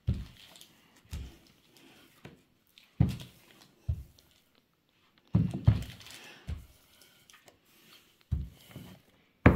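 Wooden rolling pin rolling a sheet of dough out over baking paper on a wooden table, giving irregular dull thumps and soft rustling as it is pushed back and forth.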